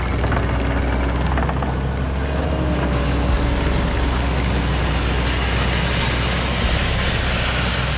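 Tracked skid steer's diesel engine running steadily and loudly under work, with a deep engine drone and mechanical noise throughout.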